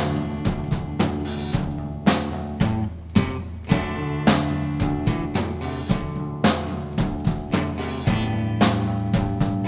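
Instrumental passage of an indie rock song: a drum kit plays a steady beat with bass drum, snare and cymbal crashes over held low notes.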